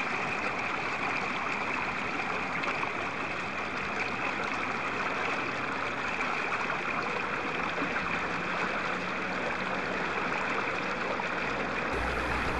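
Steady rush of flowing water, as in the irrigation channels feeding flooded rice paddies at rice-planting time.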